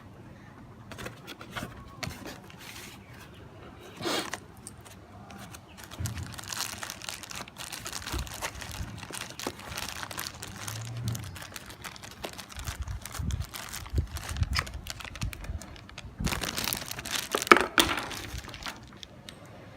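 Plastic packaging bags crinkling and rustling as cables and accessories are handled and pulled out, in irregular bursts with the loudest crinkling near the end.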